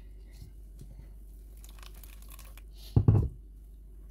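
Faint rustling as hands work a chiffon sieve cloth full of ground corn over a bowl, with a short, dull thump about three seconds in.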